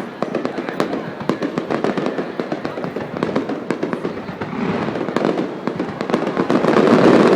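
Fireworks display going off: a rapid, continuous run of crackling pops and bangs that thickens into a denser, louder burst over the last few seconds.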